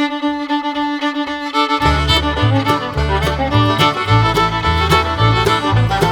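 Background music led by a fiddle, with a bass line and a steady beat coming in about two seconds in.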